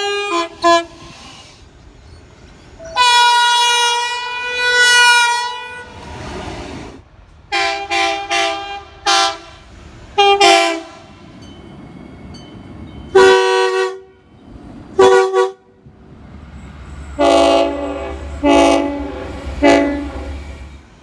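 Locomotive multi-note air horns sounding a string of blasts: one long blast, then many short toots and a closing group of blasts. A low rumble runs under the last group.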